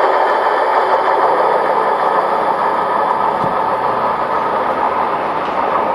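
Three-car MT5700 diesel multiple unit running away along the track, its engine and wheel noise a steady rush that slowly fades.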